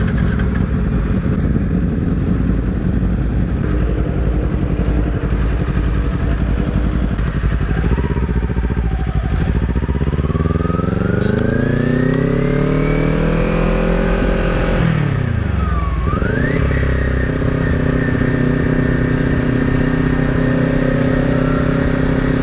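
Sport motorcycle engine running at a low, steady idle, then pulling away: its pitch climbs steadily for several seconds as the bike accelerates, drops sharply about fifteen seconds in as the throttle is rolled off, then rises again and holds a steady note while cruising.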